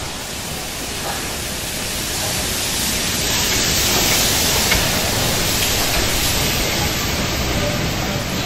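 Stanier Princess Coronation class steam locomotive 6233 'Duchess of Sutherland' drifting slowly past, a loud steady hiss of escaping steam swelling as the engine goes by, over the low rumble of the train.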